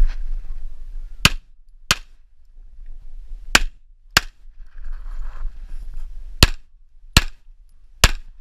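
Tanfoglio Stock II 9x19 pistol firing seven shots, mostly in pairs a little over half a second apart, with short gaps between the pairs.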